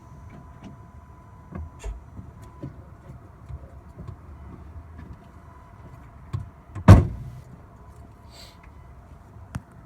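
Car with its engine off: scattered small clicks and knocks, then a single loud slam about seven seconds in, the sound of a car panel such as a door or bonnet being shut, and another knock near the end.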